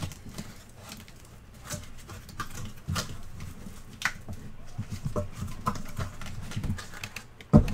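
Sealed cardboard case of card boxes being handled and opened by hand: scattered taps, scrapes and rustles of cardboard, with a louder knock near the end.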